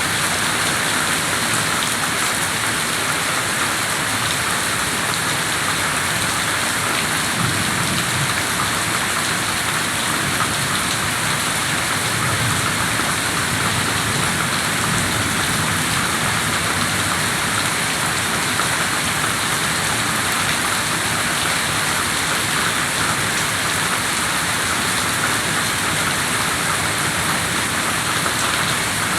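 Steady rain falling and pattering on surfaces, an even hiss that does not let up.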